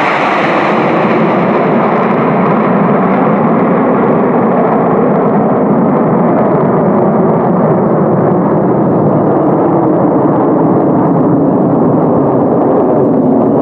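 A formation of Aermacchi MB-339 PAN jet trainers, each with a single Rolls-Royce Viper turbojet, passing overhead in a loud, steady roar. The roar loses its hiss and grows duller as the jets climb away.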